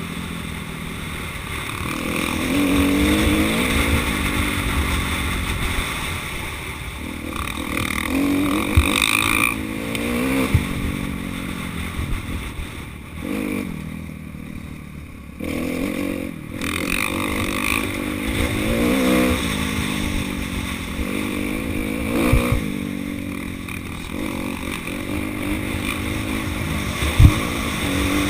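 Motocross bike engine revving up and easing off over and over as it rides, with one sharp knock near the end.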